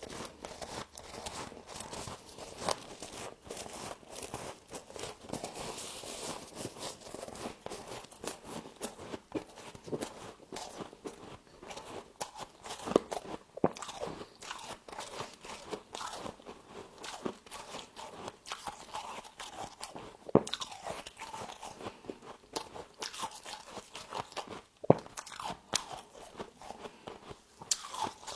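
Close-up biting and chewing of humidifier frost: a dense, continuous crackling crunch, with several sharper, louder bites standing out.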